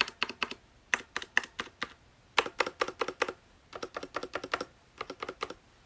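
Hansung GK993B SKY mechanical keyboard with Cherry MX Red linear switches being typed on, in five short runs of quick keystrokes with brief pauses between.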